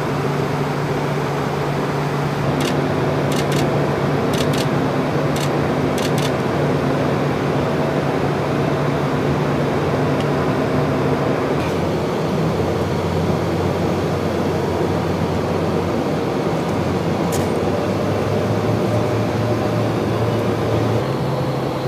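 Steady cabin noise of a small jet in flight: an even rush with a low hum that drops to a lower pitch about halfway through. A few faint clicks come in the first several seconds.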